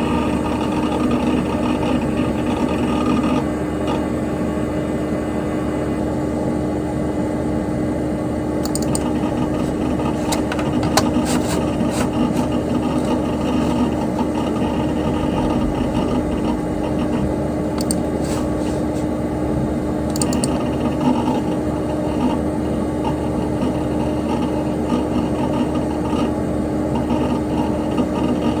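Dell Dimension XPS P100c desktop computer running: a steady whir and hum from its cooling fan and spinning hard drive. Twice in the middle stretch, clusters of short clicks come from the hard drive heads seeking.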